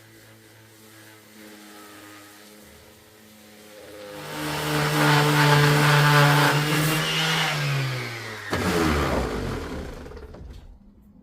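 An electric power-tool motor in a woodshop, running steadily and getting much louder about four seconds in. Its pitch drops near the end as it gives way to a rushing noise that fades.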